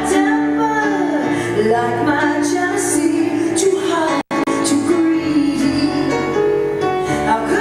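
Live rock band playing a slow ballad with a woman singing lead. The sound drops out for a split second about four seconds in.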